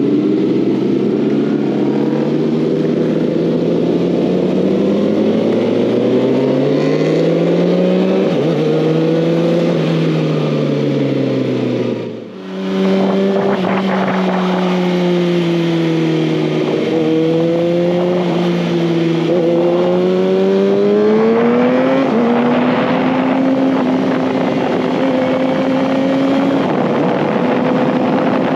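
2019 Kawasaki ZX-6R's inline-four engine under way, its pitch rising and falling repeatedly as it is ridden through the gears. There is a short dip in the sound about twelve seconds in.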